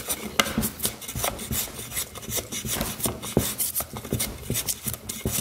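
Block plane scraping across a wet maple board in quick, short strokes, several a second, each a rasping shave as the blade lifts curls from the green wood.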